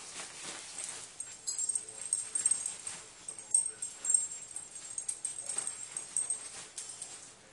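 Small Havanese dog whining in short high bursts while it paws and rustles at puffy bedding.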